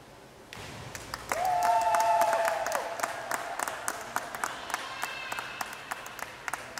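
Two divers entering the pool water together, then spectators applauding with sharp separate claps, and a drawn-out cheering shout about a second in, loudest near the start and fading.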